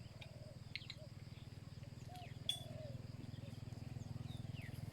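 Wild birds calling outdoors: short repeated hooting calls and quick high chirps, over a low steady hum.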